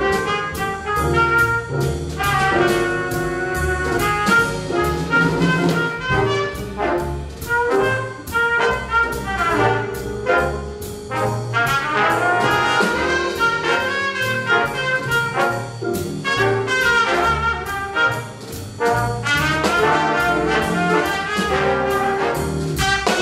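A jazz ensemble playing: trumpets and trombones in full chords over a rhythm section, with drum and cymbal hits running through.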